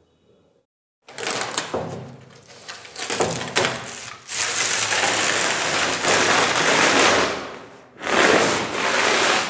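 Fibre mesh backing being peeled and torn off the back of an Italian marble slab, a loud tearing noise in three long pulls that starts about a second in.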